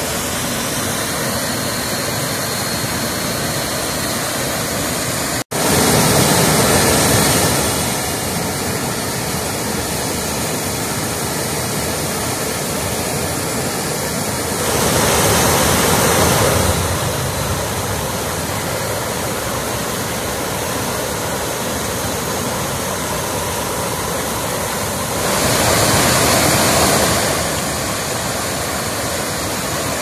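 Small creek waterfall and rapids rushing steadily. The rush gets louder three times for about two seconds each, and drops out for an instant about five seconds in.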